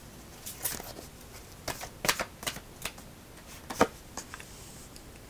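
A deck of oracle cards being handled, with a card drawn off the deck and laid down: a string of short, irregular crisp clicks and snaps, the sharpest about two seconds in and near four seconds.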